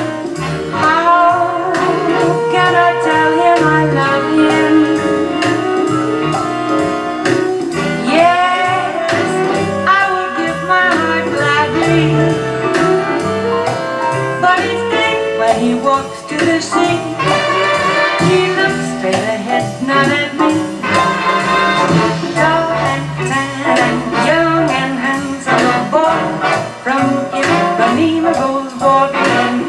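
Jazz record with a woman singing over a backing band, played back through hi-fi loudspeakers driven by a Yamaha HMA-9500 MkII power amplifier.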